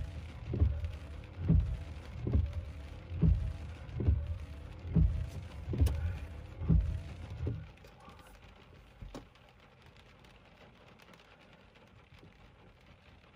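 A regular low thumping, a little under one beat a second, that stops about seven and a half seconds in. After it there is only a faint steady background and a single click about nine seconds in.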